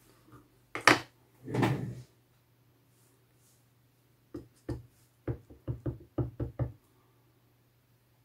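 A stamp on a clear acrylic block tapped repeatedly onto a black ink pad to ink it: about nine short knocks in quick succession over roughly two and a half seconds. A single sharp click and a brief rustle come about a second in.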